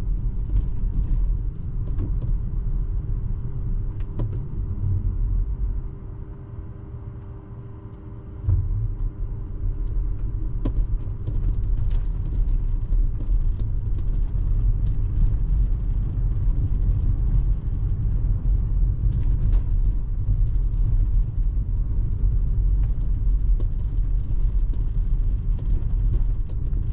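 Tyre and road rumble inside a Tesla driving on snowy streets, steady and low, with a few faint clicks. About a quarter of the way in, it turns quieter for a couple of seconds, then comes back abruptly.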